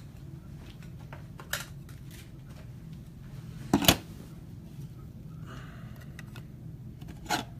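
Football trading cards and their packaging being handled on a table: a few light clicks, a louder double knock about four seconds in, and a short rustle, over a steady low hum.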